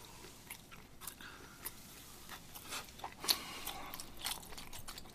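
Faint chewing of sushi, with irregular small wet clicks and smacks from the mouth, one a little louder just past the middle.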